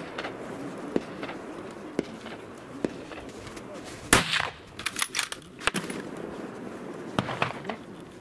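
A single loud gunshot from a hunting long gun about four seconds in, fired at a running-moose target, followed by several fainter sharp cracks over the next few seconds.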